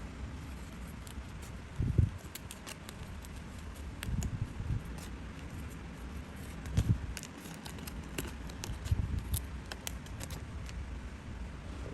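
Paper pieces being handled on a table: a few soft knocks and many light, crisp clicks over a steady low hum.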